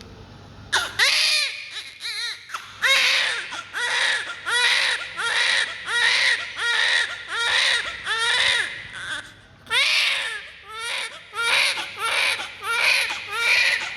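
Baby crying in a steady run of short wails, each rising and then falling in pitch, starting about a second in and coming roughly one every three-quarters of a second, with a brief pause about two-thirds of the way through.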